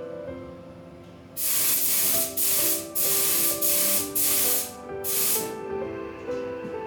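Paint spraying in about six short bursts of hiss, each roughly half a second, over background music.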